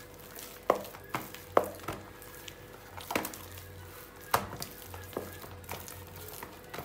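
Wooden spoon stirring and mashing soft mashed potatoes in a plastic bowl, knocking against the bowl at irregular moments about once a second, the loudest knock about a second and a half in. The milk and salt are being mixed in.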